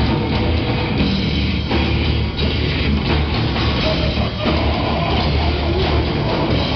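A live rock band playing loud, with electric guitars and a drum kit.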